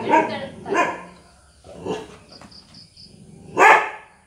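A dog barking, about four separate barks with pauses between them, the loudest near the end.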